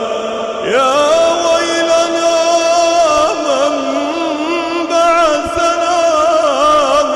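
A man reciting the Quran in a slow, melodic chant (tajwid), holding long notes with ornamented turns. A new phrase starts on a rising glide just under a second in.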